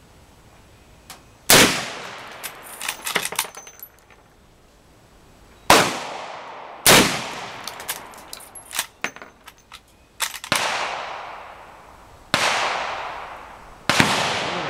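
.357 Magnum gunshots, six in all, spaced one to four seconds apart, each with a long fading echo. A few small clicks follow the first shot.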